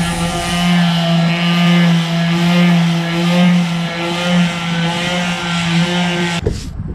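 Electric palm sander with 80-grit sandpaper running steadily, smoothing body filler on a repaired patch. It switches off near the end.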